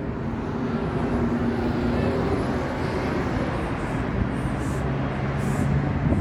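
Road traffic: a steady hum of car engines and tyres from a busy street.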